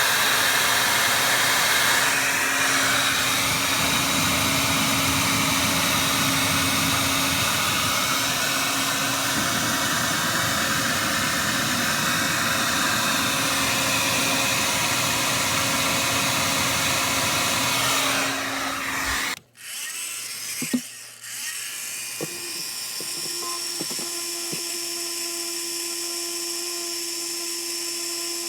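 A loud, steady motor running with a rush of air, which cuts off abruptly about two-thirds of the way through. A click follows, then a quieter, steady whirring with a thin high whine.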